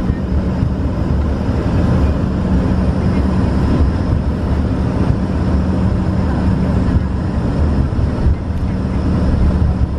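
Steady low rumble and hum inside the cabin of an Embraer ERJ-135 as it taxis, its rear-mounted turbofan engines running at low power.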